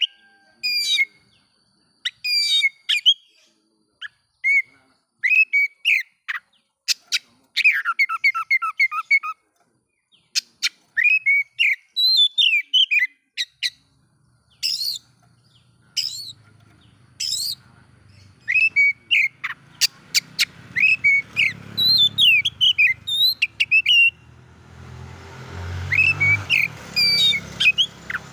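Oriental magpie-robin (kacer) singing loud, varied whistled phrases with rapid chattering trills, short pauses between them. About halfway through, a low rumble comes in under the song and grows louder near the end.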